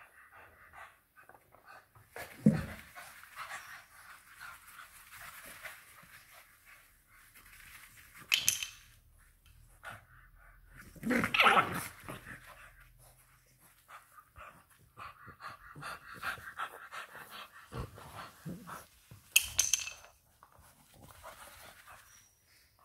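Two English bulldog puppies play-fighting: panting and snuffling throughout, broken by a few short, loud barks.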